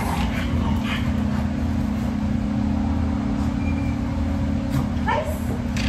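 A steady low hum with no change in level, plus a brief voice-like sound about five seconds in.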